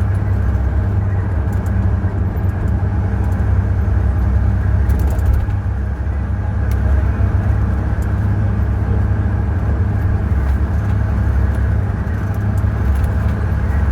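Ashok Leyland bus's turbocharged diesel engine running steadily under way, a deep drone with the turbocharger's whistle riding over it.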